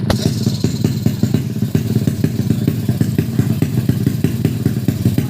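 Tuned 130cc drag-race motorcycle engine running steadily at idle, a rapid even pulse, with one sharp click right at the start.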